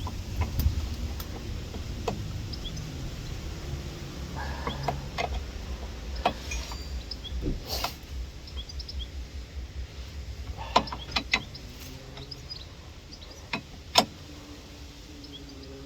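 Scattered sharp metallic clicks and knocks of hand tools (a spanner and a Torx bit) being worked and handled on a shock absorber's top nut, over a low steady background hum.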